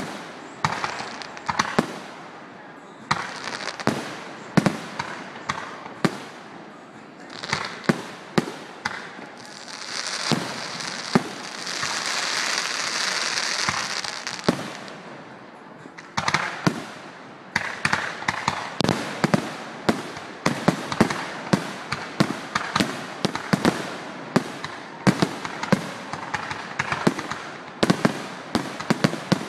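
Aerial fireworks shells bursting one after another in sharp bangs. A steady hiss of about five seconds comes near the middle, and the bangs come thick and fast through the last half.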